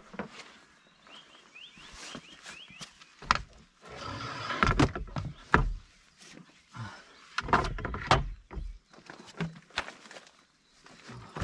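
Boat gear, the inflatable's benches among it, being handled and laid into a car boot: scattered knocks and thumps with rustling and scraping in between, loudest about halfway through and again a couple of seconds later.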